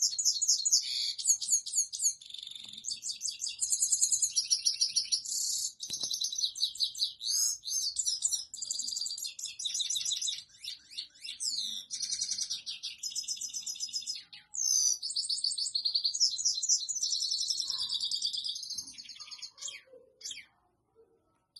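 Male goldfinch singing a long, fast twittering song of quick trills and buzzy notes, the courtship song sung to a female. The song thins to a few scattered notes near the end.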